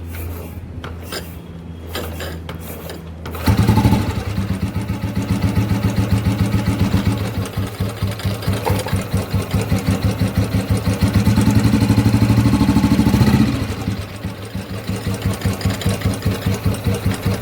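A few light clicks, then about three and a half seconds in a motorcycle engine fires up and runs with a rapid, even pulsing beat. Near the end it is held at higher revs for a couple of seconds, then drops back to a steady idle.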